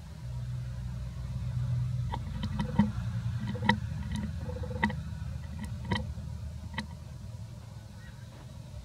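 A steady low rumble, with a scatter of sharp clicks, about eight of them, from about two to seven seconds in.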